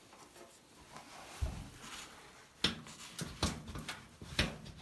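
A dull thump, then three sharp knocks with a few lighter clicks: the fireplace's door being pushed against its frame, which does not shut yet over the thick new sealing rope and its taped ends.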